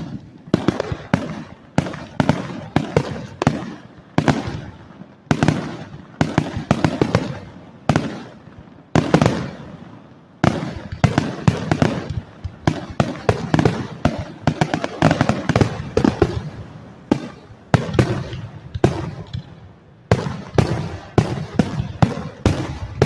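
A fireworks display: a fast run of loud bangs, several a second, each with a short echoing tail, broken by a few brief lulls. The booms are deep enough to be felt in the chest.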